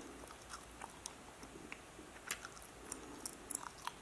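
Faint scattered clicks and light rustling from small close-up handling: a guitar knob being worked on by hand while its engraved lettering is painted and wiped. A few sharper clicks come about two seconds in and again near the end.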